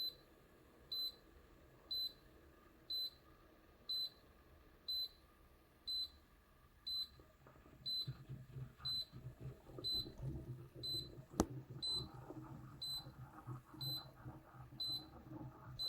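Electric siphon coffee maker beeping once a second, a short high beep each time. About halfway through, a low hum with faint rustling joins the beeps, and a single sharp click sounds near the end.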